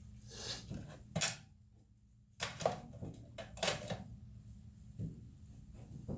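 Small metal parts clinking and clattering as they are handled, a string of sharp knocks with the loudest about a second in and a brief silent gap near the two-second mark.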